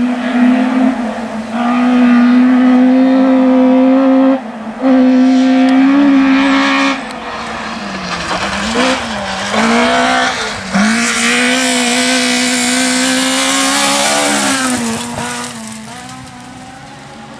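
Rally car engine held at high revs under full throttle, with a brief lift about four seconds in. Around eight to ten seconds the revs drop and rise unevenly as the car works through a corner, then it pulls hard again and fades away near the end.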